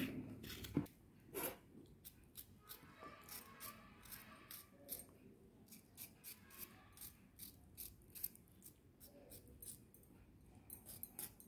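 A knife finely chopping bell peppers on a chopping board: faint, irregular taps, roughly two or three a second.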